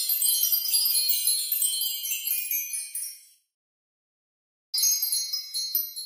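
Magic fairy bells sound effect: a dense run of high, tinkling bell notes that fades out about three seconds in, then after a gap of about a second a second twinkling run starts near the end.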